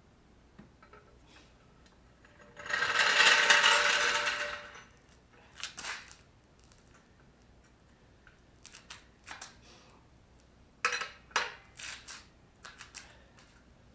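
Tools being handled during car repair work: one loud hissing burst of about two seconds, then scattered metallic clicks and clinks.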